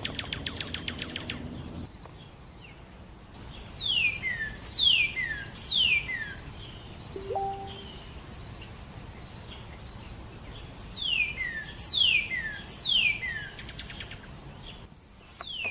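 Birdsong: clear whistled notes that sweep quickly down in pitch, sung in runs of three, about four seconds in and again about eleven seconds in. A steady high insect-like tone runs underneath, with rapid ticking in the first two seconds.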